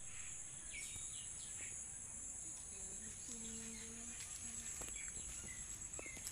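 Outdoor insect chorus, crickets or cicadas, giving a steady high-pitched buzz, with birds chirping now and then in short falling calls. A brief low hum sounds a little past halfway.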